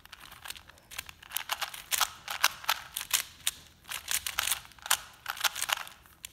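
Plastic 3x3 and 4x4 twisty puzzle cubes being turned quickly by hand: fast, irregular clicking of the layers snapping round, several turns a second in quick runs.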